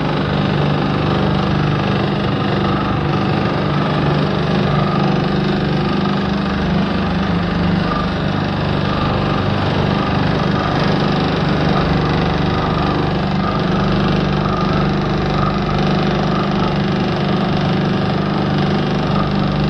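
Electric single-disc rotary floor scrubber running steadily: a constant motor hum with the brush scrubbing foamy cleaning solution into terracotta tiles.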